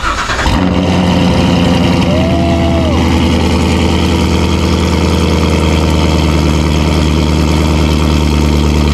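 Chevrolet Corvette C7's 6.2-litre LT1 V8, fitted with long-tube headers, running loud and steady at a cold-start idle just after it catches. It settles from the start-up surge into an even idle within the first second.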